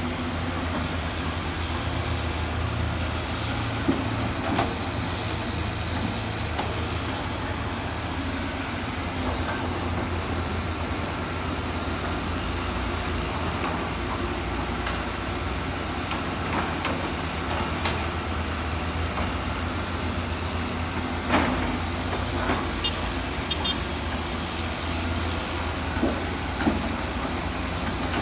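A heavy diesel engine running steadily with a low, even hum, and a few sharp clanks and knocks.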